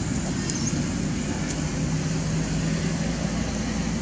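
Steady low rumble of background noise, with a faint steady hum through the middle.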